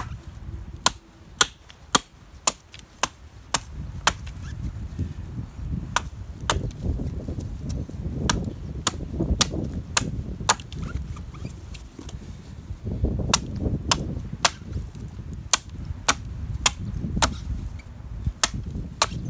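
Wood campfire crackling, with sharp single pops and snaps at irregular intervals, one or two a second, over low gusts of wind.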